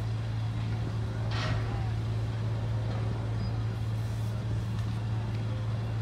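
A steady, low engine drone hums without a break, with a brief hiss about a second and a half in.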